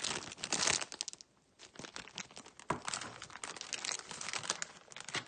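Clear plastic bag crinkling as it is handled, in dense, irregular crackles, with a short lull a little over a second in and a sharp click about halfway through.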